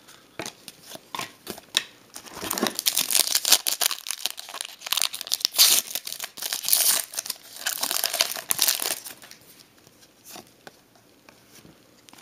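Foil trading-card pack wrapper crinkling and tearing open, with a few light clicks of handling first and dense crackling for most of the time, dying away to faint rustles near the end.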